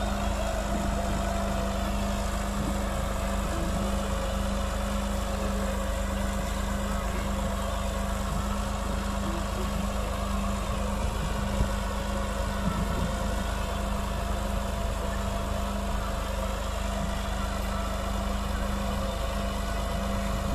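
Farm tractor's diesel engine running at a steady speed while it pulls a potato planter, its note holding even throughout.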